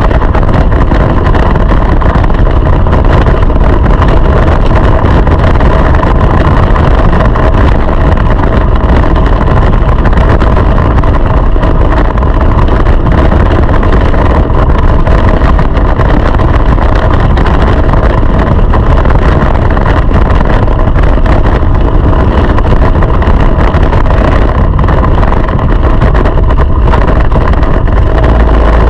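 Go-kart engine running hard, heard loud and close from a microphone on the moving kart. It holds a fairly even note over a heavy low rumble.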